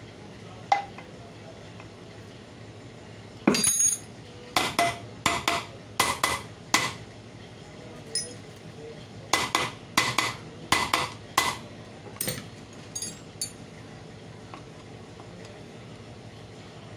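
Hammer tapping on the metal end cover of a single-phase monoblock pump motor, about fifteen sharp metallic knocks in quick bunches, to seat the cover evenly while its bolts are tightened.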